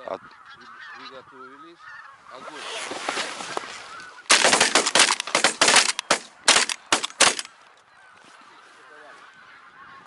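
Geese honking overhead, then a rapid volley of about ten shotgun shots from several guns over about three seconds, starting about four seconds in.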